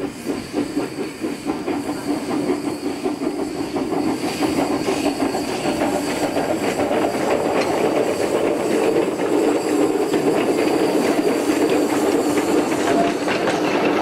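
Narrow-gauge steam locomotive working past with quick, regular exhaust chuffs and steam hiss. Then its coaches roll by, wheels clattering on the rails, the sound growing louder.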